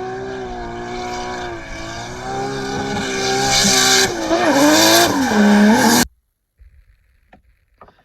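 Race car engine revving, its pitch rising and falling, with tyre-squeal hiss loudest between about three and six seconds in. It cuts off suddenly about six seconds in, leaving near silence with a few faint clicks.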